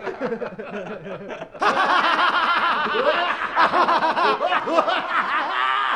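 Several people laughing together, starting as quieter chuckling and swelling suddenly about a second and a half in into loud, overlapping laughter from many voices.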